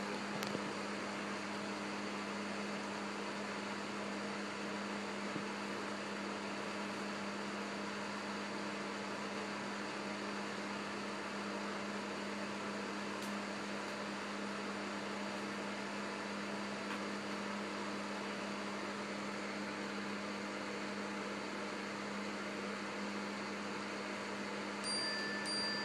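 Steady low electrical hum over an even hiss of room noise, with a short high-pitched tone near the end.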